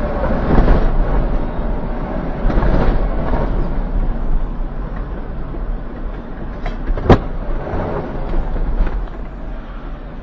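A vehicle running, a steady low rumble with rushing noise that swells twice in the first few seconds, and one sharp knock about seven seconds in.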